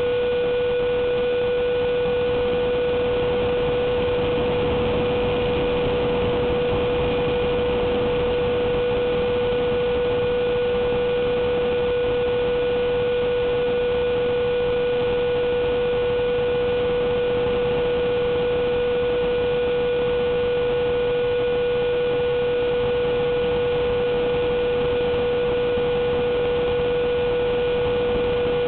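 Onboard audio of a Durafly Vampire electric ducted-fan model jet in flight: a steady, unchanging hum over rushing air noise.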